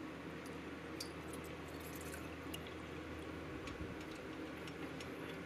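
Fresh goat milk pouring from a stainless steel milk pail through a funnel lined with paper milk filters into a glass jar: a steady, faint trickle with a few soft ticks.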